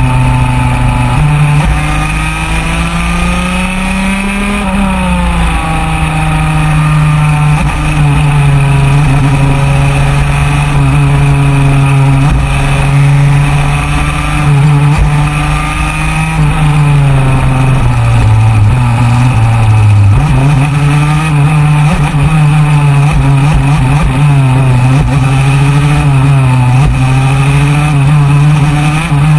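125cc superkart two-stroke engine at full racing speed, heard onboard, its pitch climbing and dropping with throttle and gear changes. The note falls away for a few seconds past the middle as the kart slows, then jumps back up sharply. Steady wind rush over the microphone sits underneath.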